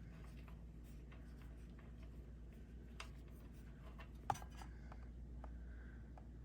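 Faint small clicks of hand and metal, with one sharp click about four seconds in, as the loosened oil drain plug is turned out by hand, over a low steady hum.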